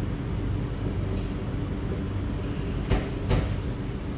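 Steady low hum inside the carriage of a C751B metro train, with two short sharp clicks about three seconds in.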